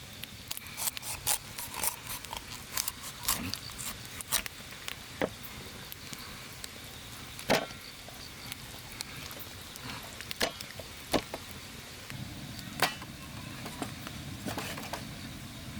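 Irregular sharp clicks and knocks, a few dozen of them, over a steady background; a low steady rumble joins about twelve seconds in.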